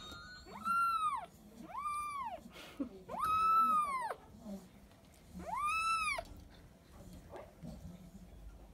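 Kitten meowing four times: short, high calls that rise and then fall in pitch, the third one longer than the others.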